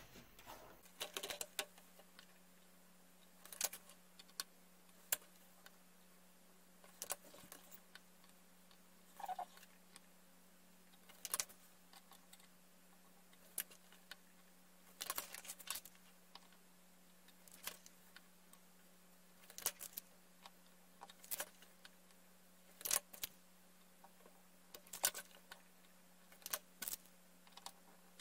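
Faint, irregular clicks and taps of multimeter probe leads and a small screwdriver being handled against a 3D printer's mainboard, its stepper driver boards and wiring, coming every second or two over a faint steady low hum.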